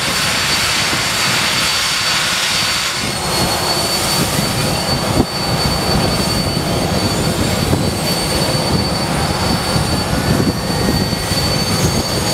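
Handley Page Victor K.2's Rolls-Royce Conway jet engines starting up: a steady high whine over a low rumble, with several rising whines from about three seconds in as engines spool up. One brief pop a couple of seconds later.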